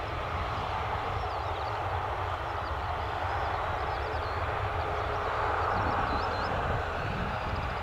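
Jet engines of a Boeing 737-800 heard at a distance as a steady rush, swelling slightly about six seconds in, with small birds chirping high above it.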